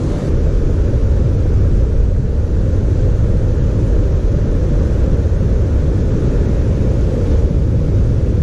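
Wind buffeting the camera's microphone: a steady, loud low rumble with no breaks.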